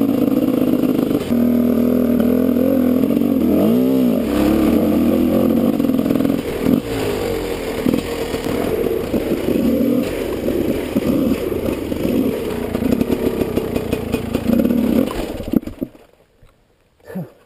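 Husqvarna WR 250 two-stroke dirt bike engine running under load, with one rising-and-falling rev about four seconds in and uneven throttle blips after it. The engine cuts out about sixteen seconds in, followed by one short knock.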